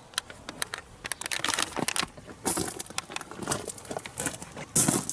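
Footsteps crunching on the ground, with scattered sharp clicks and rustles and a louder rustle near the end.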